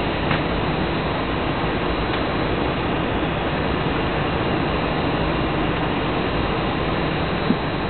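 Steady engine and airflow noise inside the cabin of an Airbus A320 on approach. A short click sounds about seven and a half seconds in.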